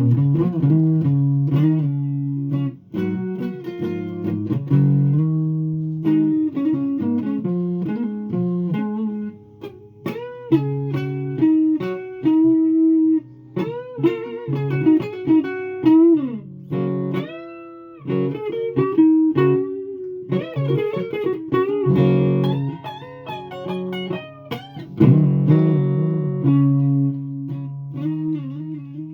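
A guitar being played solo in a loose jam, mixing held chords with quick single-note runs. Bent notes slide up and down about halfway through.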